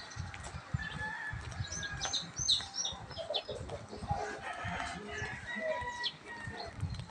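Village chickens and roosters crowing and clucking, with a run of short high bird chirps about two to three seconds in, over irregular low thuds.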